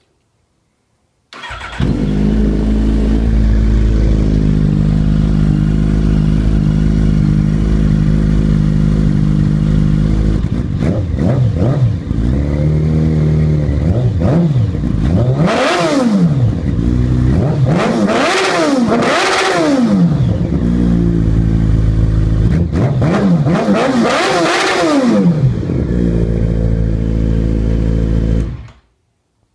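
Yamaha FZ motorcycle engine with aftermarket exhaust headers, idling and then revved several times in quick blips that rise and fall in pitch. It drops back to idle between blips, and the sound cuts off suddenly near the end.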